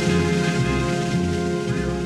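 Background music with a steady low beat and sustained melodic tones.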